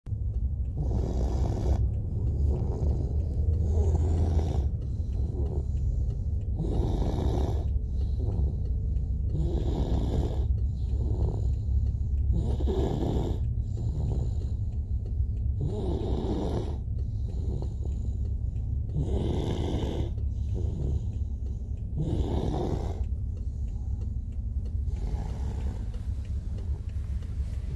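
A 21-month-old toddler snoring in sleep, one snoring breath about every three seconds, growing fainter near the end, over a steady low hum.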